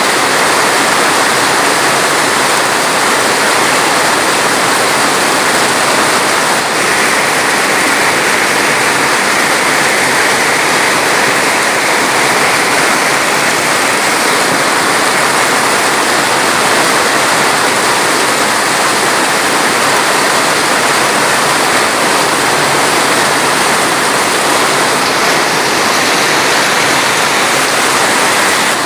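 Steady, loud rushing of flowing water, unchanging throughout.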